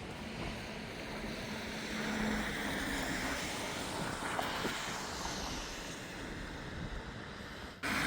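Strong storm wind blowing in gusts, a steady rushing noise that swells about two seconds in, with wind buffeting the microphone; it breaks off abruptly near the end.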